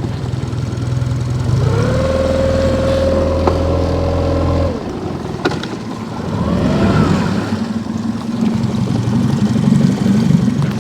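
Boat outboard motor running: it revs up about two seconds in, holds a steady pitch, drops back just before the middle, then picks up again in the second half.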